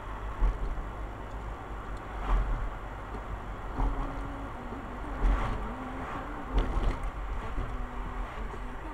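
Driving noise from a moving road vehicle: a steady low rumble with thumps and swells every second or two. Faint music with a stepping melody comes in about four seconds in.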